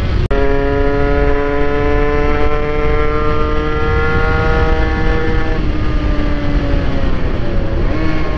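Honda NSR80's two-stroke single-cylinder engine under way, heard from the saddle with wind rumbling on the microphone. The engine note climbs slowly for about five seconds, falls away as the throttle eases, then dips once more near the end before picking back up. There is a momentary break in the sound just after the start.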